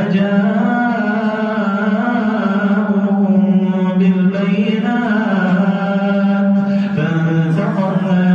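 A man chanting Quran recitation in Arabic in a melodic tajweed style, with long held notes and brief breaths about three seconds in and near the end.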